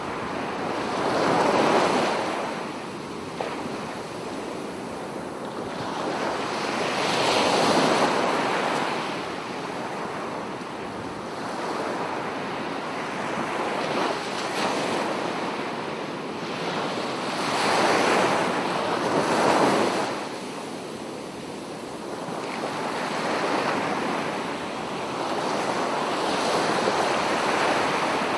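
Ocean surf: waves breaking, the noise swelling and easing back every several seconds.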